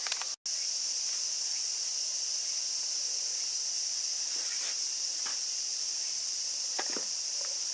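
Steady high-pitched insect chorus shrilling without a break, with a brief dropout about half a second in and a few faint taps later on.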